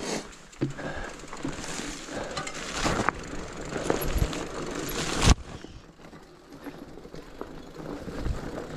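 Rigid fat bike on a rocky trail: crunching tyre and trail noise with scattered rattles and knocks, and one sharp clunk about five seconds in, after which it goes quieter.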